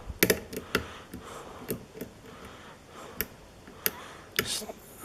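Single-pin picking of a pin-tumbler lock: a metal offset hybrid pick tapping and lifting the pins against tension from a pry-bar tension wrench. It makes a string of sharp, irregular clicks as pins are worked and set, the strongest just after the start and near the end.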